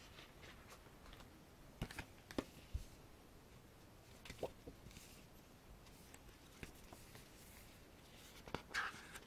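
Faint handling of a photobook: scattered soft taps and clicks as it is held and its pages are turned, with a brief paper rustle near the end.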